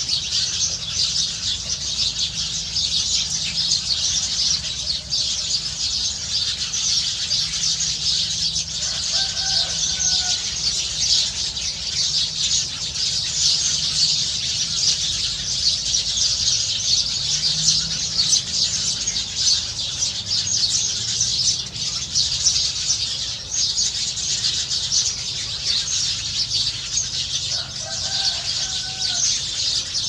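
A flock of small birds in the trees chattering continuously, a dense mass of high chirps. A short lower call cuts through twice, about nine seconds in and near the end.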